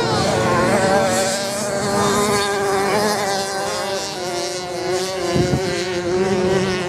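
Several off-road motorcycle engines buzzing as the bikes ride the sand track, their pitches wavering up and down with the throttle.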